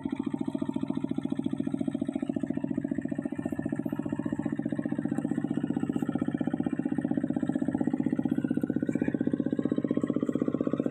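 Two-wheel walking tractor's single-cylinder diesel engine running at a steady, rapid chug as it works a flooded rice paddy, cutting water channels after sowing.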